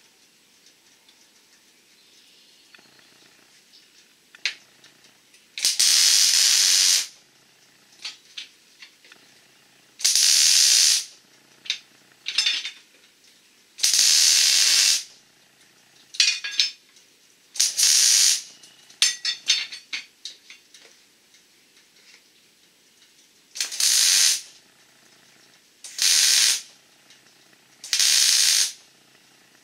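MIG welder laying tack welds: about nine short bursts of crackling hiss from the arc, each half a second to a second and a half long, with quiet gaps between.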